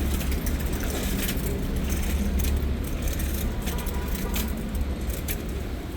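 City street traffic noise: a steady low rumble of motor vehicles, with a few short clicks and knocks.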